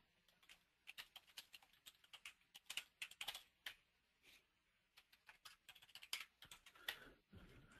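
Typing on a computer keyboard: faint, quick, irregular keystrokes, with a short pause about halfway through.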